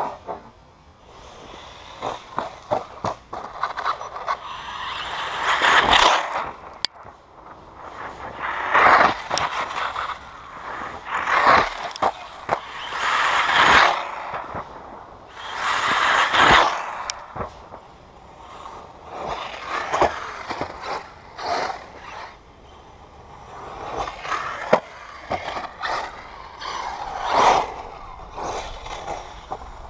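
Radio-controlled off-road buggy running laps on a dirt track: its noise swells and fades as it passes close, about every two to three seconds, with tyres scrabbling on the dirt and sharp knocks as it lands from jumps.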